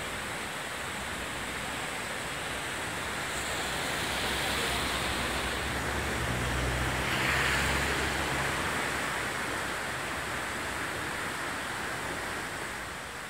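River Calder in flood, fast brown water rushing and churning into white water: a steady rush of water that swells a little in the middle.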